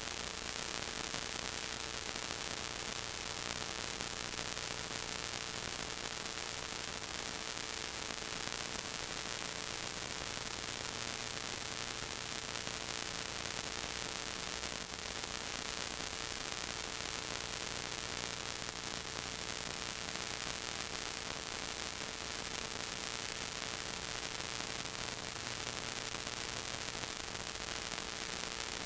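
Steady hiss with a constant faint hum. This is the noise of a silent 8mm home movie's tape transfer, not a recorded sound.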